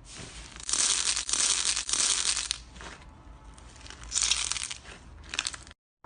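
Slime being squished and pressed by hand, making crackling, crunchy sounds. The longest burst lasts about two seconds, and two shorter bursts follow. The sound cuts off abruptly near the end.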